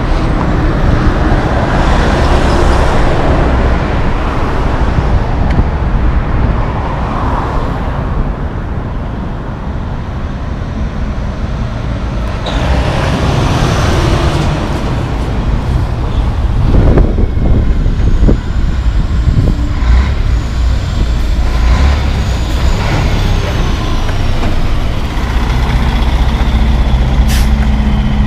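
Cars and heavy diesel trucks passing close by in city traffic, a steady low engine rumble with tyre noise. About twelve seconds in comes a sudden air-brake hiss, and near the end a truck's diesel engine runs close by.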